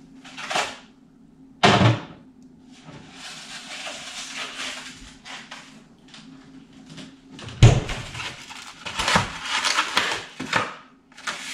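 A refrigerator being opened and rummaged through: rustling and light clattering, with two thumps, the louder one about eight seconds in as the fridge door is shut. A low steady hum runs underneath.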